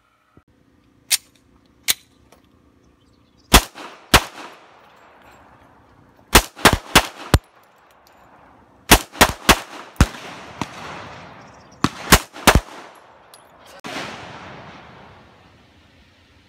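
Gunfire at an outdoor shooting range: about sixteen sharp shots in irregular groups of one to four, each ringing out in a long fading echo. The first two shots are fainter than the rest.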